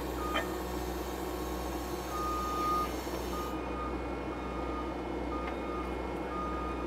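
Case TV450 skid steer's diesel engine running steadily, heard from inside the cab, with its backup alarm beeping about once a second from about two seconds in as the machine reverses.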